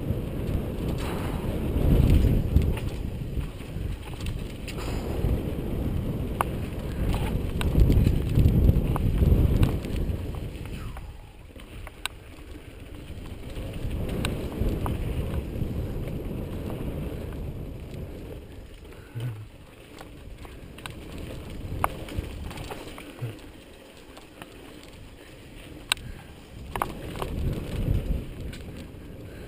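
Mountain bike rolling fast down a dirt trail, heard from a bike-mounted action camera: low rushing wind buffeting and tyre rumble that surges and eases with speed, with scattered sharp clicks and rattles as the bike hits bumps.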